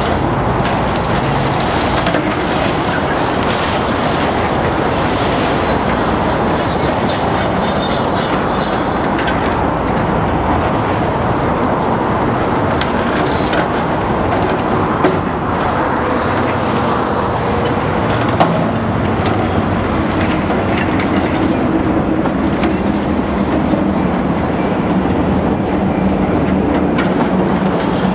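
A high-reach demolition excavator works its hydraulic shear through a reinforced-concrete building. The heavy machine runs steadily under a constant crunching and grinding of breaking concrete and rebar, with a couple of sharp cracks about halfway through. The engine note grows stronger in the last third.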